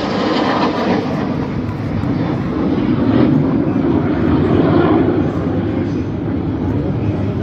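Jet noise from a formation of display jets flying overhead: a steady rushing roar that swells about three seconds in and eases toward the end.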